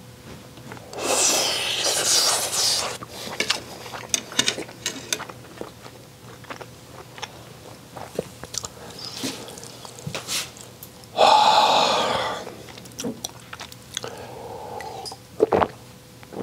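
Close-miked chewing of a mouthful of rice mixed with crab roe from a grilled crab shell, full of small wet mouth clicks. Two long, loud, breathy exhalations, about a second in and again about eleven seconds in, stand out over the chewing.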